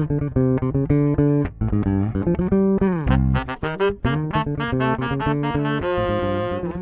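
Outro music with plucked guitar and bass guitar playing quick notes.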